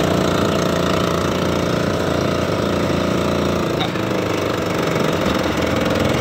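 The engine of a motorized outrigger fishing boat (bangka) running steadily at an even speed, a continuous pounding drone.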